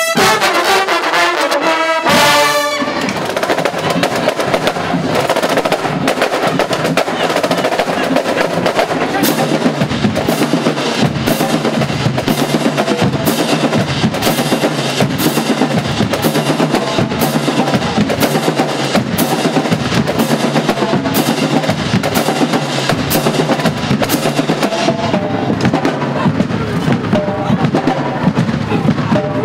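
Marching band brass section finishing a loud chord, which cuts off about two seconds in. The drumline then carries on alone with a steady marching cadence on snare and bass drums.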